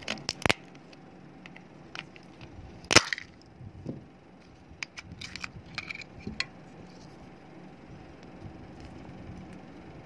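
Plastic case of a small USB phone charger being forced apart with pliers because it would not open: two sharp cracks near the start, a loudest snap about three seconds in, then a run of smaller clicks as the pieces come apart.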